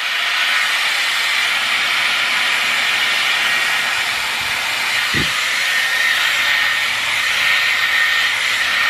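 Dyson Airwrap running on its highest fan setting with middle heat: a steady rush of blown air with a thin high whine through it.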